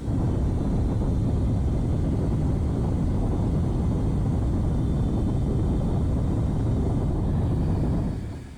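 Hair dryer blowing steadily, starting suddenly and fading out near the end.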